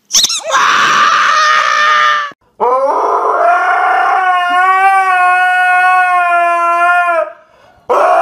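A dog howling: a first call of about two seconds, then one long steady howl of about four and a half seconds, and a third starting near the end.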